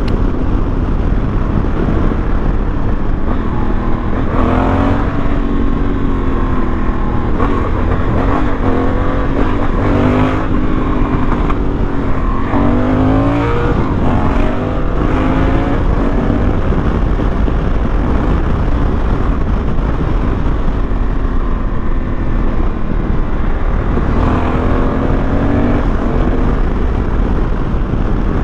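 Honda Africa Twin parallel-twin motorcycle engine under way, with a steady rush of wind noise. The engine note climbs in pitch a few times, about four, twelve and twenty-four seconds in, as the bike accelerates.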